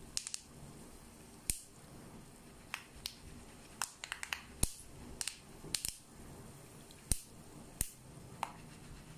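Melon seeds frying in hot oil in a steel mesh strainer: a faint sizzle with irregular sharp pops and crackles, about fifteen of them.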